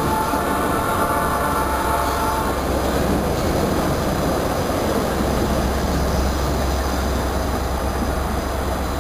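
Diesel-electric locomotive hauling a passenger train at slow speed, heard close from the side window: a steady engine drone over the rumble of wheels on the rails. A high ringing tone over the first two seconds or so fades away, and the low drone grows a little stronger about halfway through.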